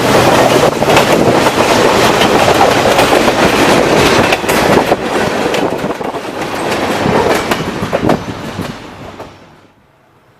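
Freight cars of a manifest train rolling past, wheels clattering over rail joints in a dense run of clicks and clacks. The sound falls away sharply near the end.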